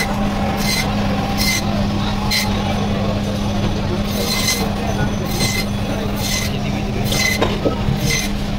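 Knife blade scraping along a snakehead fish in short rasping strokes, about one a second, over a steady low hum.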